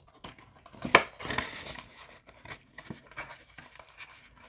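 Paper and plastic being handled: a tracker card and the pages and clear plastic envelopes of a small ring binder turned and shuffled. A sharp click comes about a second in, followed by rustling and light scattered taps.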